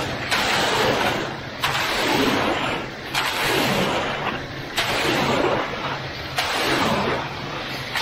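Concrete rake pulled in repeated strokes through wet, loose high-slump concrete. There are about five strokes, one every second and a half, each a sharp click as the blade lands followed by a wet scraping slosh.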